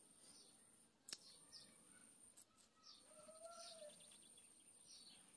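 Near silence with faint bird chirps and a steady high, thin tone that drops out briefly now and then. A single sharp click comes about a second in.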